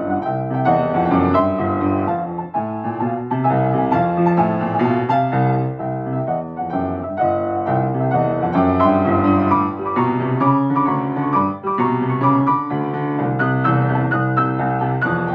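Grand piano being played, a continuous run of melody and chords over held low bass notes.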